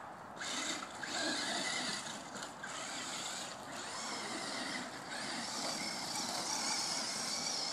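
Electric radio-controlled car (Duratrax Evader) driving over grass and dirt, its motor and drivetrain a faint, steady whine and hiss.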